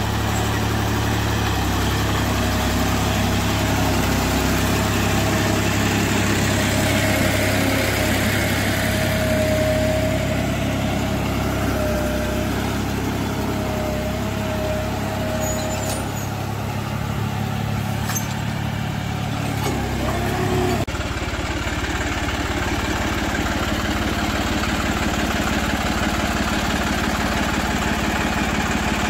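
John Deere 5310 tractor's three-cylinder diesel engine running steadily while it pulls a cultivator through the field. About two-thirds of the way through the sound changes suddenly to a closer, even engine note.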